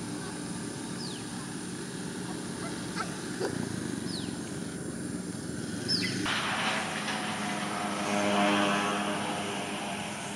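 A bird gives a few short, high whistled notes, each falling in pitch, a second or few apart. From about six seconds in, the sound of a passing engine swells, becoming the loudest sound, then eases off.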